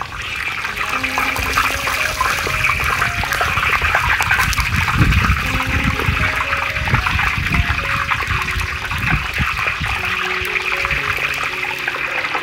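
Whole durians deep-frying in a wok of hot oil: the oil sizzles and bubbles hard around the fruit as it goes in, a dense crackling hiss that swells over the first couple of seconds and then holds.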